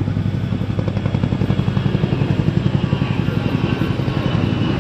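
CH-47 Chinook tandem-rotor helicopter rotors thumping in a rapid, steady beat. A high jet-engine whine from a departing airliner grows stronger about three seconds in.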